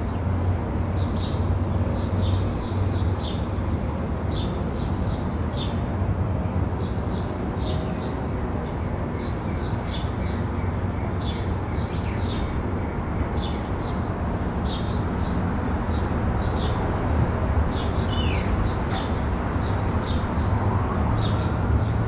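Small birds chirping repeatedly, short high chirps coming several times a second, over a steady low background rumble. A faint whine slides in pitch near the end.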